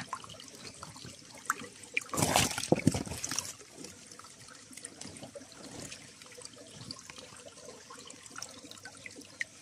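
Water trickling, with a louder noisy burst lasting about a second and a half, about two seconds in.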